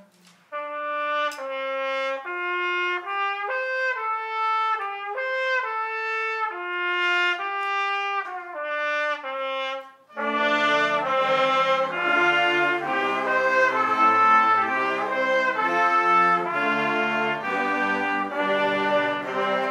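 School band rehearsing: trumpets play an unaccompanied melody, one line of held notes. About halfway through, the rest of the band comes in with harmony and lower parts, fuller and louder.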